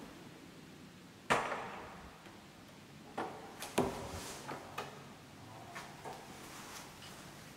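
A wooden door being handled and pushed open: one sharp knock about a second in, then a few lighter clicks and knocks from its latch and leaf a couple of seconds later.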